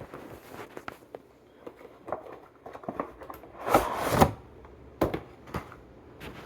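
Toy car multipack packaging being opened by hand: the cardboard and plastic clicks and crinkles, with a louder tearing sound about four seconds in.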